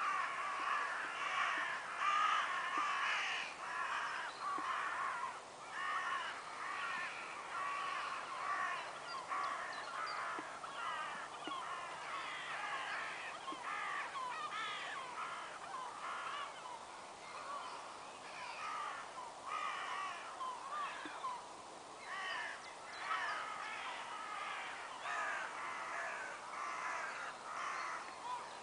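A flock of crows cawing, many birds calling over one another at once in a dense, continuous chorus, loudest in the first few seconds.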